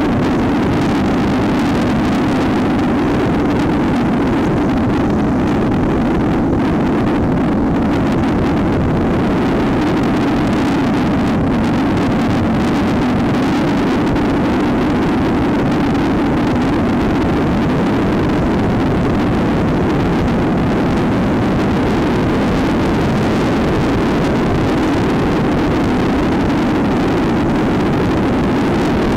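Trail motorcycle engine running steadily at cruising speed on the road, with wind rushing over the microphone.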